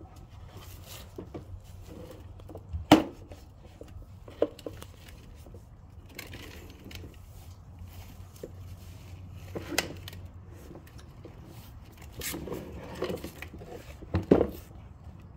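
Large plastic toy dump truck's tipping bed knocking and scraping as a toddler handles it: scattered knocks and clatters, the loudest about three seconds in and another near the end, over a low steady hum.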